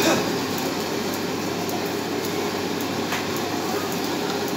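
Steady roar of a restaurant gas wok burner at full flame, blended with the kitchen's extractor hum. A faint light tap comes about three seconds in.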